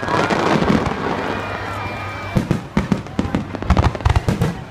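Aerial fireworks bursting: a dense crackling hiss for the first two seconds, then a rapid run of sharp bangs and pops.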